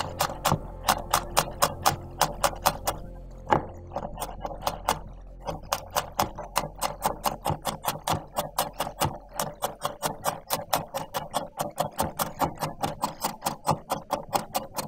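Chef's knife chopping garlic on a wooden cutting board: quick, even knife strikes on the wood, about five or six a second, with a short slower patch around four seconds in.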